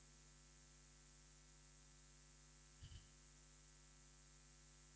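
Near silence: a faint, steady electrical mains hum, with one brief soft sound about three seconds in.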